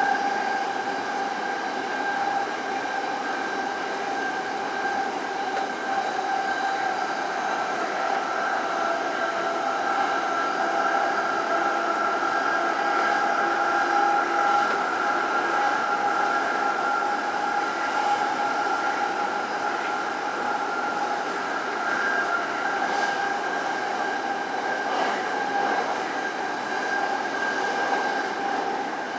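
Tōyō Rapid Railway 2000 series electric train running through a subway tunnel, heard from inside the front car: a steady rumble of wheels on rail with a steady whine over it.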